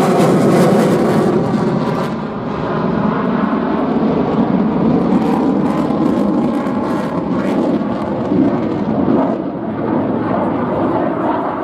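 Mitsubishi F-2 fighter's single turbofan jet engine running at high power through a display pass, with its afterburner lit at the start. The noise is loudest in the first two seconds, where the pitch sweeps downward as the jet passes, then settles into a steady rumble.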